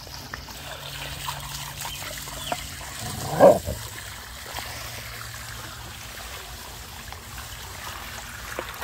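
Garden hose spraying water into a plastic kiddie pool, a steady trickle and splash with small clicks and splashes as a dog bites at the stream. About three and a half seconds in there is a brief pitched vocal sound, the loudest moment.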